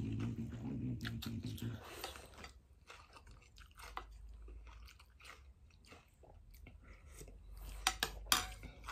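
Close mouth sounds of someone eating noodle soup with meatballs: sucking in noodles, then chewing with many small wet clicks. Near the end, a couple of sharper clicks as a spoon knocks against the bowl.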